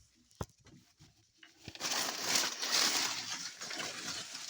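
Dry leaf mulch (dry mango, banana or plantain leaves) in a snail pen rustling and crackling as it is handled. A few scattered crackles at first, then a dense, louder rustle from about two seconds in.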